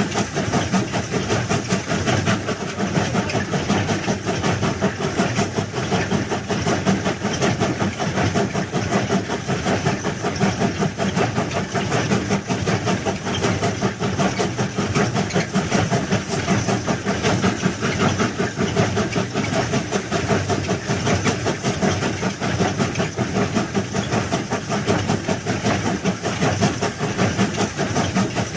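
Train running along the rails, a steady rumble with a continuous fast rattle of wheels and carriages.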